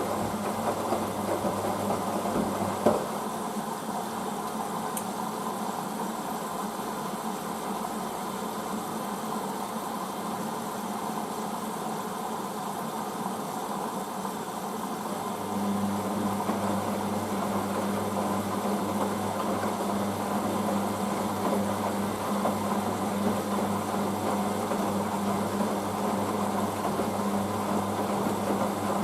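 Hoover DYN9144D3X washing machine running its first rinse: a steady low hum that cuts off with a click about three seconds in and comes back louder about halfway through.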